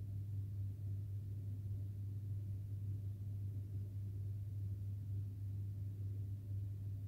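A steady low hum, even throughout, with a faint rumbling haze above it.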